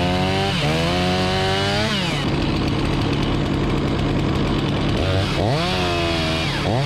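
Chainsaw revved up twice, held at high revs for a second or so each time and dropping back down between, over a steady low engine hum.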